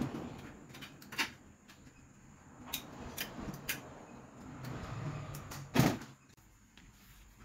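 Aluminium profile pieces being handled and fitted by hand: a few sharp clicks and knocks, the loudest a little before six seconds in.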